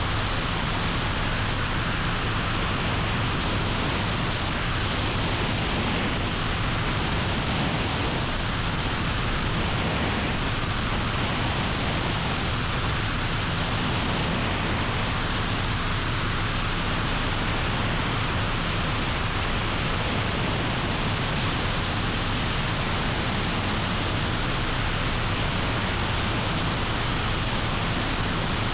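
Helicopter in flight: steady engine and rotor noise with a constant low drone underneath, unchanging throughout.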